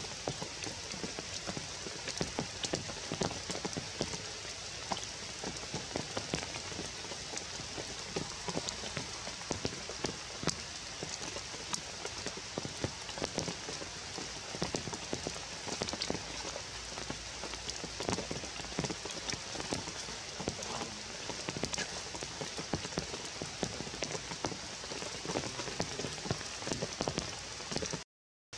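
Steady rain falling on forest leaves and branches, with many close, sharp drips. The sound cuts out for an instant near the end.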